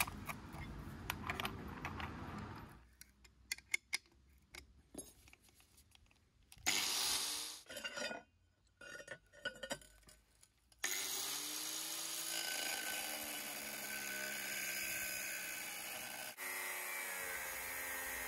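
Clicks and knocks of a thin cutting disc being fitted to an angle grinder, with a short burst of sound about seven seconds in. From about eleven seconds in, the angle grinder runs steadily, cutting 4 mm stainless steel sheet with an ultra-thin 1 mm cutting disc.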